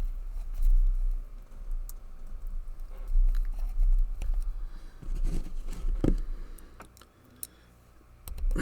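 Scattered small clicks and taps as a Walsall 2000 five-lever padlock is handled and put back together, over dull low thumps and rumble from the handling.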